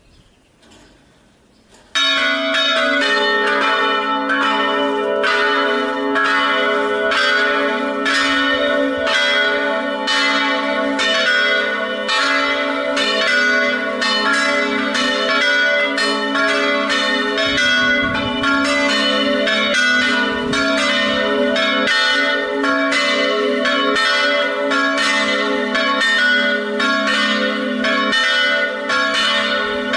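Three church bells, tuned A, B and C-sharp, start ringing about two seconds in and keep up a loud, continuous peal of rapid overlapping strikes: the festive ringing for noon.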